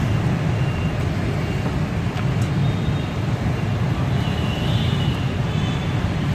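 Steady road traffic noise: a continuous low rumble of passing vehicles, with no single event standing out.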